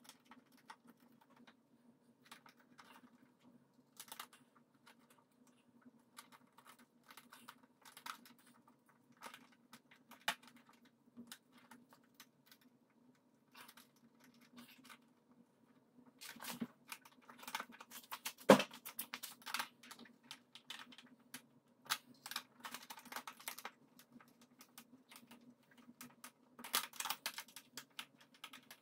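Scattered light clicks, ticks and scrapes of small tools, nuts and bolts on a plastic rear fender as the fender-mount nuts are tightened, with one sharper click about halfway through. A faint steady hum runs underneath.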